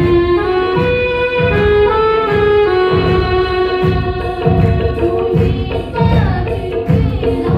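Live Hindi Christian worship song: a woman singing into a microphone over electronic keyboard accompaniment, with held melody notes and a steady beat.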